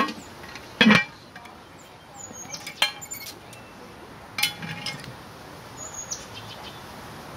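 Heavy cast iron Dutch oven lids clanking as they are lifted and set down on the pots with an iron lid lifter: a loud clank about a second in, then sharper metallic clinks around three seconds and four and a half seconds in. Birds chirp briefly twice.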